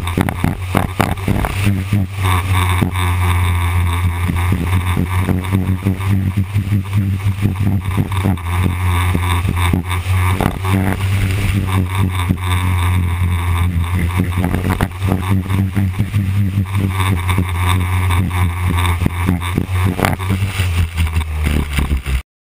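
Engine of a small winged dirt-track racing car heard from a camera mounted on board, running at a steady pitch under way, with frequent short bumps and buffets over it. It cuts off abruptly near the end.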